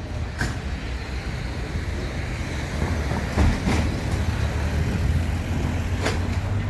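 City street noise: a vehicle's steady low rumble, with a few sharp clicks.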